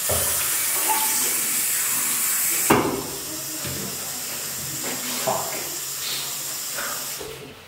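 Steady hiss of rushing water from restroom plumbing as the urinals flush. It drops to a quieter tap running over hands being washed after about three seconds, with a sharp knock at the change and a few soft knocks after it.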